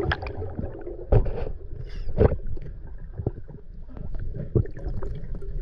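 Muffled underwater sound from a camera held beneath the surface of a canal: a steady low rumble of water with scattered clicks and knocks, two louder knocks about a second and about two seconds in.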